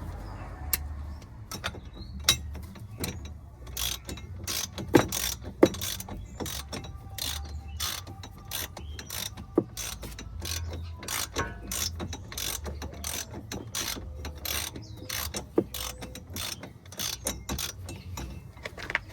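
Hand tool clicking in quick, uneven strokes as a new inner tie rod is tightened onto the steering rack.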